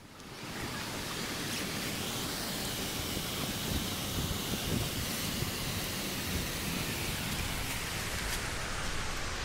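Steady rushing noise of a waterfall.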